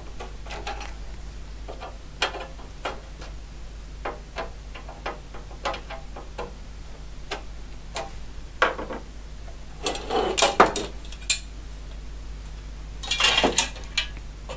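Screwdriver working the fasteners on a PDP-8M's metal chassis cover: a series of sharp clicks and ticks. Metal clattering as the cover panel is lifted off and handled, about ten seconds in and again near the end.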